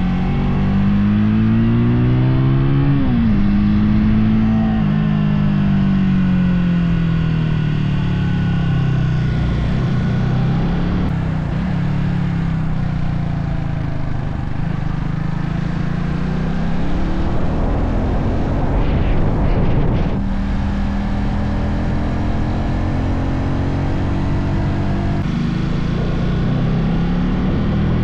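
Motorcycle engine running under way, its pitch rising and falling as it speeds up and slows. About three seconds in there is a quick rise and a sharp drop, like a gear change. Road and wind rush runs underneath.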